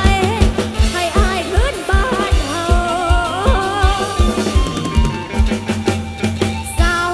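Loud Thai rot hae band music over a sound truck's speakers: a steady kick-drum beat under a woman singing into a microphone. Her singing drops out for a couple of seconds near the end while the beat keeps going.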